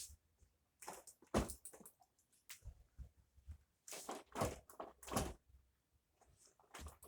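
A string of irregular light knocks, thunks and rustles from objects being handled, the firmest one about a second and a half in and a cluster around four to five seconds; no vacuum motor running.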